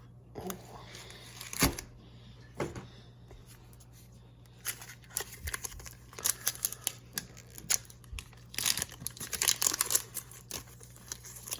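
Foil booster-pack wrappers of Pokémon trading card packs crinkling and being torn open, with scattered sharp crackles and a dense stretch of crinkling about two-thirds of the way through.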